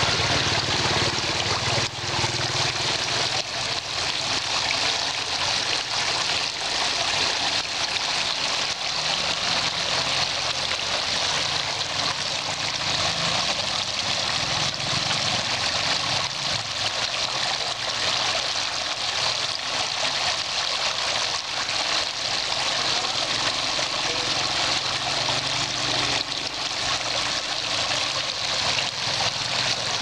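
Water from a small handmade model waterfall pouring off a ledge and splashing steadily into a pebbled pool, with a low hum underneath.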